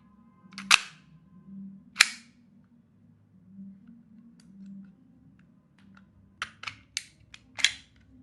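Sharp metallic clacks from a gas blowback airsoft pistol being handled: two loud clacks about a second apart near the start, then a quick run of five near the end.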